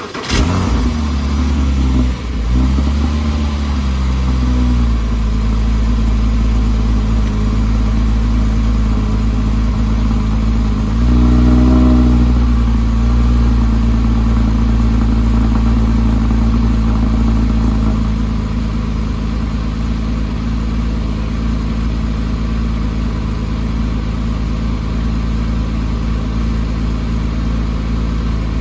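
2008 Porsche 987 Cayman S's 3.4-litre flat-six on a cold start: it catches and its revs flare and settle over the first few seconds, rise briefly again about eleven seconds in, then hold a steady fast idle.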